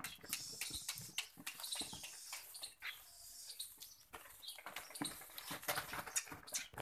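Barbari goats moving about: scattered small knocks and rustling.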